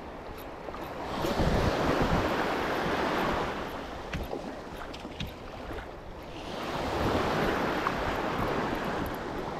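Sea waves surging in twice, each a rush of water that swells up and fades over a few seconds, with wind buffeting the microphone.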